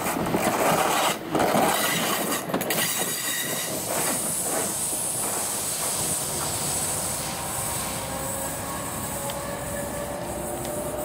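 Talgo passenger train running past on the rails, with irregular knocks from the wheels over the first few seconds. An even rolling noise carries on after that as the train moves on, with a faint slowly rising tone near the end.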